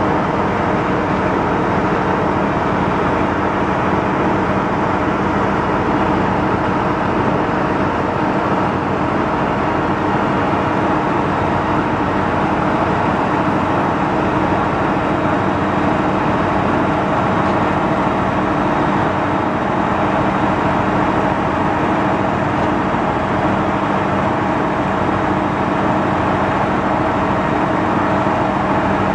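A Mack six-cylinder diesel engine in a 1977 Mack RS600L truck, running steadily at an even speed.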